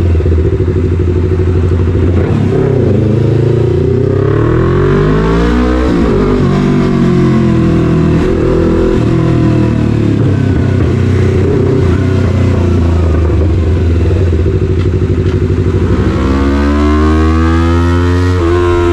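Yamaha MT-03's 321 cc parallel-twin engine running loud through an SC-Project full carbon exhaust under way. It rises in pitch as it accelerates about two to six seconds in, eases and varies with the throttle, then climbs again near the end.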